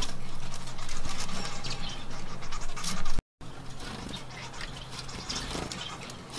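Bengalese finches chirping in short, scattered calls over scratchy rustling in their cage. The sound cuts out for an instant about three seconds in and is quieter afterwards.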